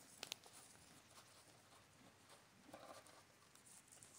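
Faint sounds of a horse eating oats from a feed pan: a couple of sharp clicks about a quarter-second in, then soft scattered crunching and nosing at the pan.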